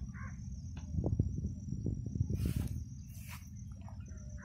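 Outdoor scrubland ambience: a steady high-pitched insect drone over a low rumble and thuds of handheld-microphone handling. A crow caws once right at the start, and two short rustling noises come a little past halfway.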